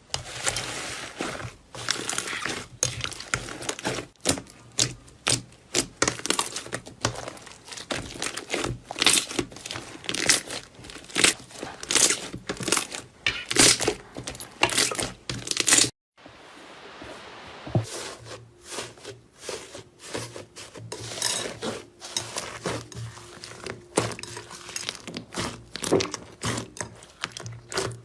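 Slime being squeezed and worked by hand, giving dense, irregular crackling clicks and pops. The sound cuts out briefly about halfway through, then goes on.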